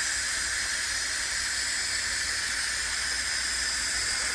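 Instant Pot pressure cooker's steam release valve venting a steady hiss of steam: a manual quick release of the pressure built up during cooking.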